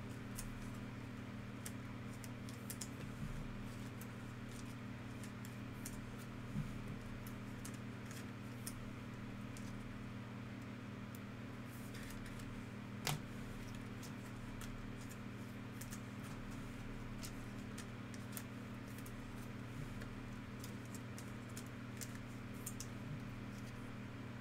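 Trading cards and plastic card holders being handled: scattered small clicks and plastic rustles as cards are sorted and slid into sleeves and rigid toploaders, with one sharper click about 13 seconds in. A steady low hum runs underneath.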